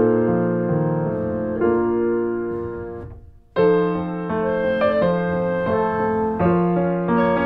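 Piano music playing slow, held chords. It fades away about three seconds in, stops for a moment, then starts again with a fresh chord.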